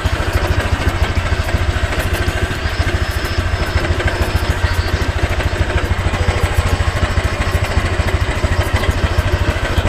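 2021 Honda Click 125i scooter's 125cc liquid-cooled single-cylinder four-stroke engine idling steadily, a fast, even low putter.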